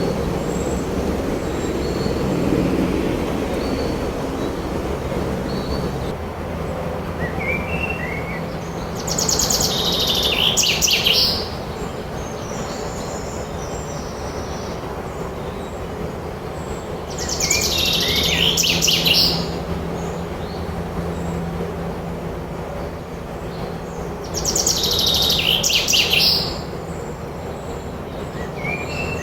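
A songbird singing: three loud, similar trilled phrases about two seconds long, repeated roughly every seven to eight seconds, with fainter chirps between, over a steady low rumble.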